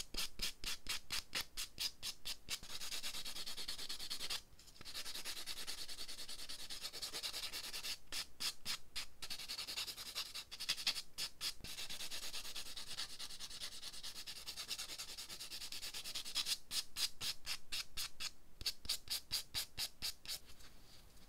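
Sponge nail buffer block scrubbed back and forth over plastic half-tip nail extensions, sometimes in quick strokes about four or five a second and sometimes as steadier continuous rubbing, with a couple of short pauses. The buffing lightly scratches the tips' surface so the gel will hold better.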